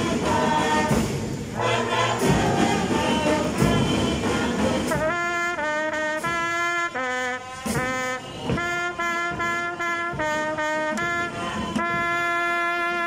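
School band playing: drums and brass together at first, then from about five seconds in the brass carries a slow melody of held notes without the drums.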